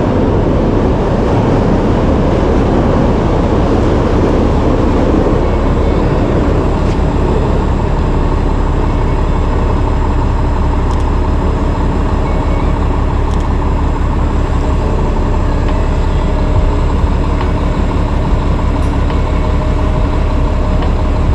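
Steady city street traffic noise. A vehicle swells past in the first few seconds, then a large engine, a city bus's, hums steadily with a low rumble.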